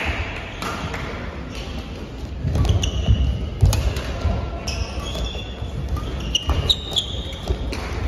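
Badminton rally: sharp racket hits on the shuttlecock, heavy footfalls and lunges, and short high squeaks of court shoes on the floor, the squeaks coming mostly in the middle of the rally.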